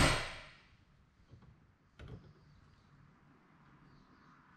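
Hammer blow on a hand impact driver set in a screw of the water pump's back plate, held in a bench vise, to break the screw loose: one loud metallic strike with a short ringing decay at the start, then a lighter tap about two seconds in.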